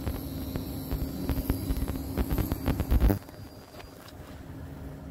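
Egg-coated sandwich bread frying in a stainless steel pan: a run of small crackles over a steady low hum. A loud low rumble comes about three seconds in, then the sound drops suddenly to a quieter steady hiss.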